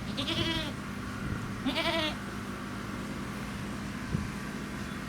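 Two short, wavering bleats from a goat or sheep-type animal, the second about a second and a half after the first, with a single light click near the end.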